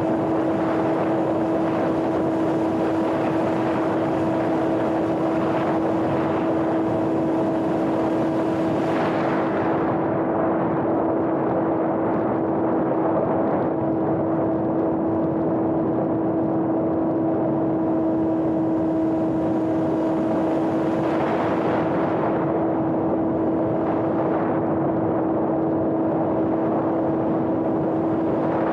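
Electric motor and propeller of a home-built RC airplane running at a steady throttle: a constant even hum over a rush of wind noise. The hiss of the wind thins about ten seconds in and swells again around twenty seconds.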